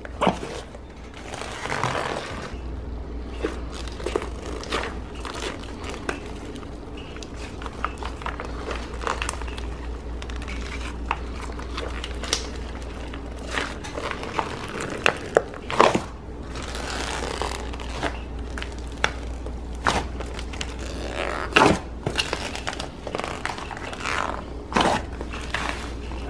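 Hands squishing and folding a tub of thick slime with mini marshmallows mixed in: irregular wet pops, clicks and squelches, a few sharper pops standing out, over a steady low hum.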